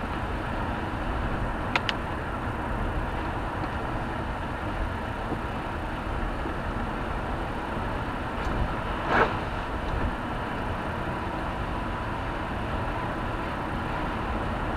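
Steady engine and tyre noise heard from inside a moving car on a wet sealed road, with two sharp clicks about two seconds in and a louder knock about nine seconds in.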